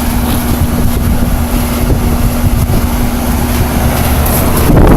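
Goodman heat pump outdoor unit running just after defrost, its condenser fan spinning back up and flinging ice pellets, with a steady hum that stops near the end. Heavy wind rumble on the microphone.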